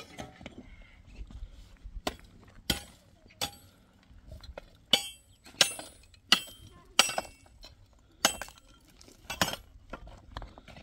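A series of sharp metallic clinks, about nine, each with a short ring, coming mostly a little under a second apart; the loudest fall in the middle.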